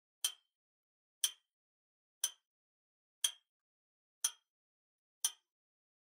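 Clock-style ticking, one sharp tick a second, six in all: a countdown-timer sound effect running while a quiz puzzle waits to be solved.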